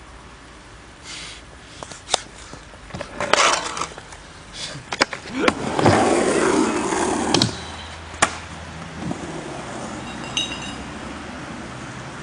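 Skateboard on concrete: several sharp wooden clacks of the board hitting the ground, with the wheels rolling loudest about six to seven seconds in, then fading to a quieter steady sound.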